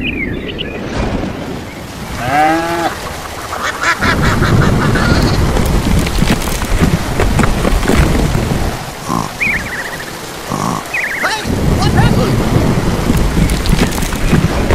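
Storm sound: heavy rain setting in about four seconds in, with low thunder rumble and many small hits of falling ice. A few short honking bird calls come near the start and again later.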